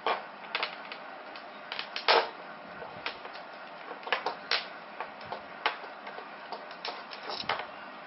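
Packaging of a Boya BY-M1 lavalier microphone being opened and handled: a run of irregular sharp clicks and taps, about a dozen, with the loudest near two seconds in.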